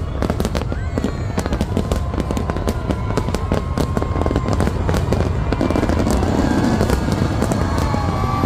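Large aerial fireworks display: a dense barrage of cracks and pops over a continuous low booming rumble.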